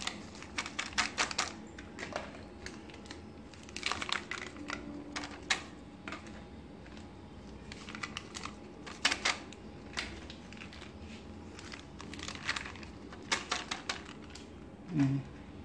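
Plastic-foil spice packets crinkling and being tapped as chicken 65 masala powder is shaken out of them into a steel bowl. The crackling comes in several short bursts.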